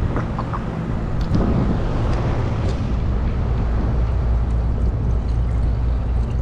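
Carrier rooftop HVAC unit running beside the listener with a steady low hum, while water is poured from a plastic bottle into its PVC condensate drain trap.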